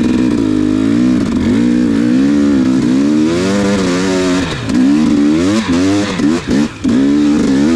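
Dirt bike engine revving up and down as the throttle is worked, its pitch rising and falling over and over, with a few quick chops off and back on the throttle in the last few seconds.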